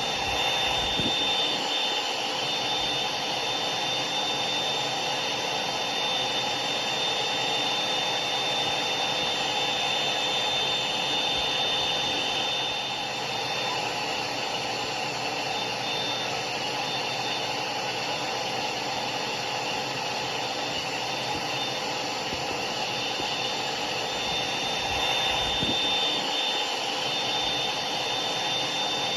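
Hair dryer running steadily: an even rushing of air with a thin high whine from the motor.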